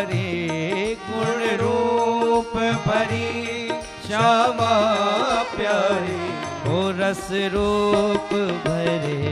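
Male voice singing a Hindi devotional bhajan in long, wavering, ornamented phrases with a keyboard and other instruments accompanying.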